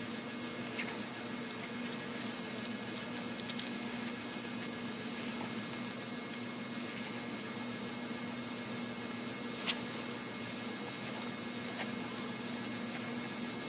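Steady electrical hum over a hiss, with a few faint short clicks.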